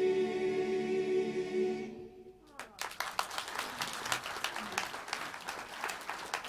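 Male voice choir holding the final chord of a song, which dies away about two seconds in. Audience applause breaks out about half a second later and keeps going.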